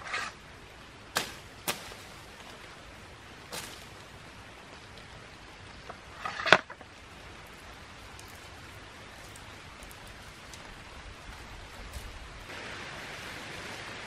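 Leafy shrub twigs snapping and rustling as sprigs are broken off by hand: about five sharp snaps, the loudest about six and a half seconds in, over a steady background hiss.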